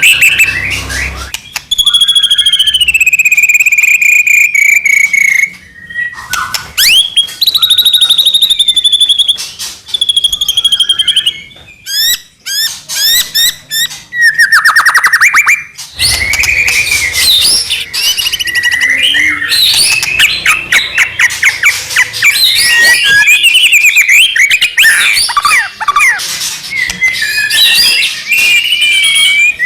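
White-rumped shama (murai batu) singing loudly in full song. Long clear whistles give way to rapid trills and falling sweeps, then a dense run of varied chattering phrases through the second half.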